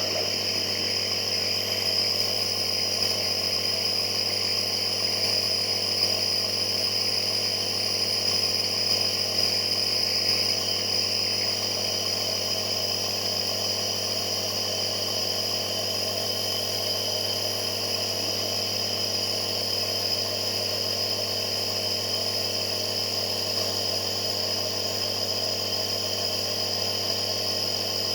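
Nebulizer air compressor running steadily: an even mechanical hum with a high whine over it.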